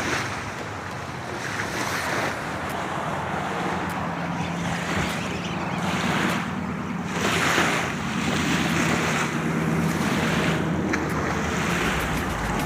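Wind gusting across the microphone: a rushing noise that swells and fades, loudest about halfway through. A low steady hum runs under it through the middle.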